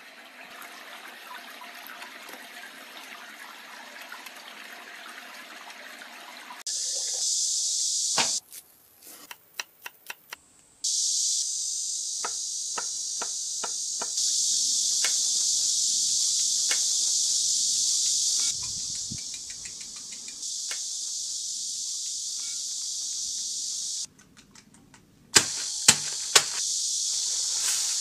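Flowing stream water for the first several seconds, then a steady high hiss that starts suddenly and drops out and returns with the cuts. Under the hiss, a chef's knife chops on a wooden cutting board in sharp knocks. A few louder knocks come near the end.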